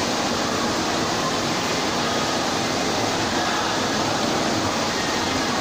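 Fountain with a tall central water jet and a ring of smaller jets splashing into its basin: a steady, even rush of falling water.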